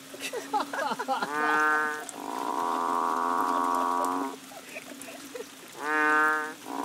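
Frogs that the uploader identifies as probably banded bullfrogs (Kaloula pulchra) giving deep, cow-like moo calls. Two loud calls from a close frog, each under a second, come about a second and a half in and near the end. Between them a longer steady call drones on, and shorter wavering calls overlap early on.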